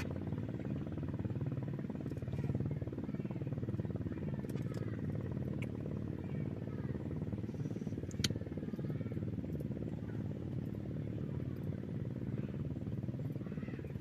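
Engine running steadily with a low rumble, its pitch wavering slightly. A single sharp click about eight seconds in.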